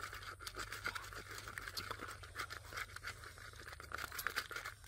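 Close-up eating sounds: food being torn and chewed, a dense run of small crackly clicks over a scratchy hiss.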